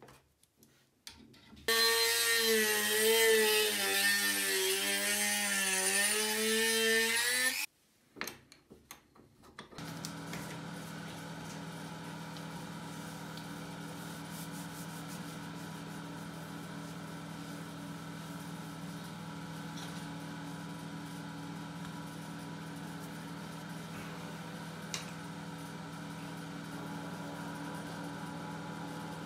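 A power tool runs for about six seconds, its pitch wavering up and down as it is worked, then stops. After a few small knocks, a steady motor hum carries on.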